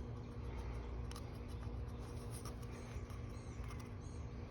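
Faint scratching and a few light clicks of small parts being handled by hand, over a steady low hum.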